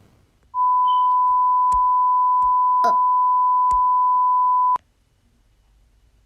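A single steady pure beep tone, played as Uganda's emergency alert alarm, held for about four seconds and then cut off abruptly, with a few faint clicks over it.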